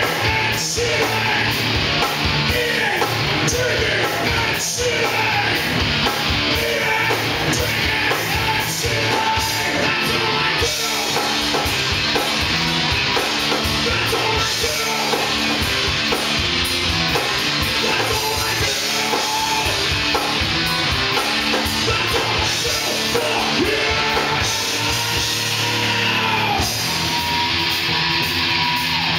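Rock band playing live, with electric guitars, bass and drums, and vocals from the singer-guitarist. The music shifts to a new section about ten seconds in and again near the end.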